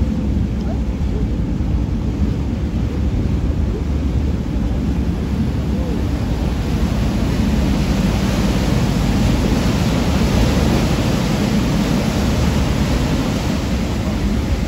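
Steady low rumble of a tour boat under way, its engine and hull running beneath a broad noisy wash. A rushing hiss swells about halfway through and eases off near the end.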